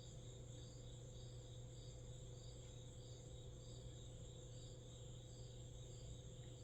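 Near silence: faint crickets chirping evenly, about three chirps every two seconds, over a low steady hum.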